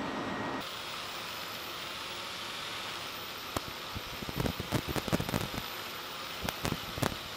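Pneumatic wire-brush tool running against the steel cylinder head of a marine diesel generator engine, for the initial cleaning before the valves are dismantled. A steady hiss and high whine, with a run of irregular sharp clicks and scrapes between about three and a half and seven seconds in.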